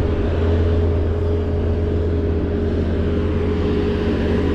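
Heavy diesel machinery, most likely the bulldozer working the arena, running steadily close by: a loud, even low drone with a steady whine above it.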